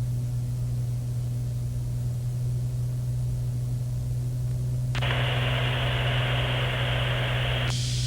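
Cessna 210 Centurion's six-cylinder engine and propeller droning steadily in the cockpit. About five seconds in, the radio opens with a burst of static hiss and no voice, which cuts off abruptly near the end.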